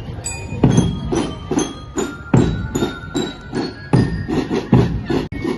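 Music with a steady, fast drum beat and a bright bell-like melody of short ringing notes over it.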